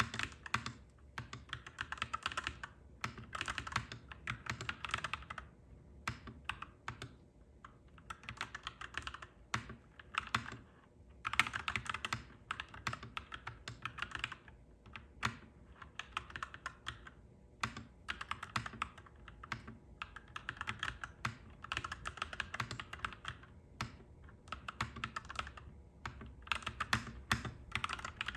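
Clacky mechanical keyboard being typed on: fast runs of key clicks in bursts of a few seconds, broken by short pauses.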